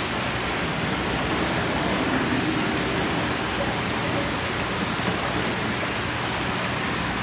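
Steady rush of running water circulating through a squid holding tank, fed by its inflow pipe and hose.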